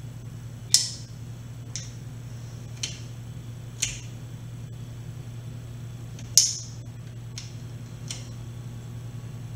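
Seven sharp metallic clicks, roughly one a second with a pause in the middle, from a wrench being worked on the oil pan bolts, over a steady low hum.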